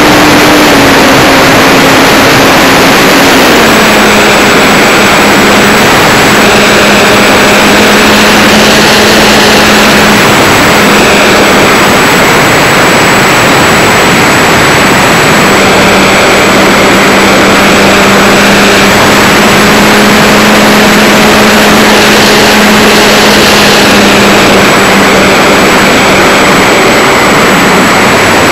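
Electric motor and propeller of an E-flite Wildcat RC warbird heard from an onboard camera behind the prop: a loud, steady rush of prop wash and wind over a motor whine, the whine's pitch stepping down a few seconds in as the throttle eases.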